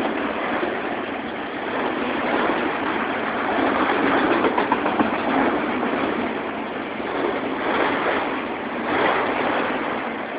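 Autorack freight cars rolling past on the rails, a steady rushing wheel-on-rail noise with no engine tone. It swells about four seconds in, with a few sharp clicks.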